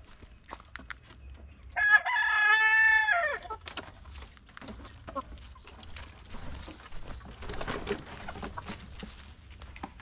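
A rooster crows once, a loud call of about a second and a half starting about two seconds in, its pitch dropping at the end. Softer clucking and small scuffing clicks follow.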